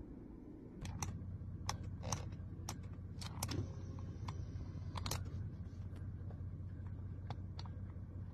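Mercedes-Benz power seat being adjusted from the door switch: the electric seat motor sets in with a steady low hum about a second in and keeps running, while the seat switch and memory buttons give a series of sharp plastic clicks.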